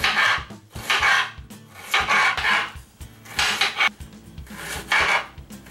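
Chef's knife slicing through an onion on a plastic cutting board, with about five separate drawn strokes, each lasting under half a second.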